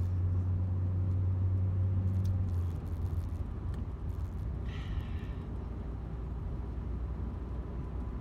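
Car engine heard from inside the cabin as a steady low drone, while the car sets off and drives. A little under three seconds in, the drone drops to a lower, quieter hum.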